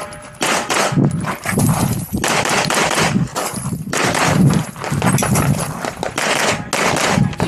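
Semi-automatic pistol firing a fast run of shots, in quick pairs and short strings with brief pauses between target arrays, during a timed competition stage.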